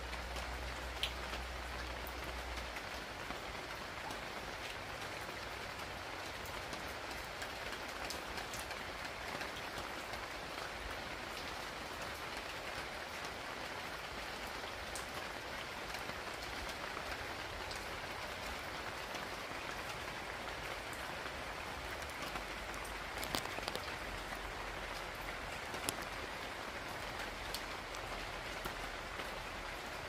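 Steady rain falling, an even hiss with scattered sharp ticks of drops and a few louder ones in the last third.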